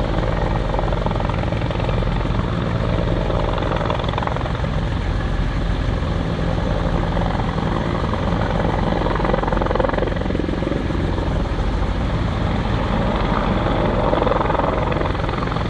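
Firefighting helicopter hovering low with its water bucket slung beneath, rotor and turbine running steadily.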